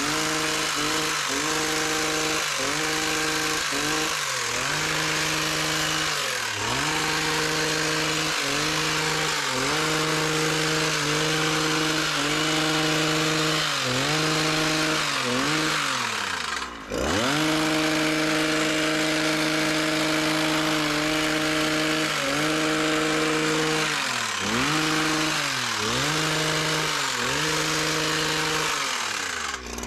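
Small petrol engine of a handheld garden power tool, such as a hedge trimmer or brushcutter, running at high revs under work, its pitch dipping briefly every second or so as the throttle is eased and reopened. It drops down sharply twice, once about halfway through and again at the end, before picking up again.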